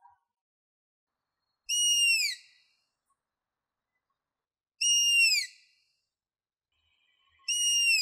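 Striped owl calling three times, about three seconds apart: each call is a high whistle held briefly and then dropping in pitch at its end.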